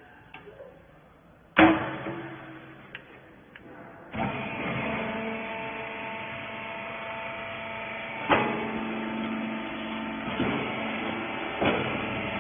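A loud metallic bang, then about two and a half seconds later the cloth baler's motor starts and runs with a steady hum, broken by two more metallic clanks.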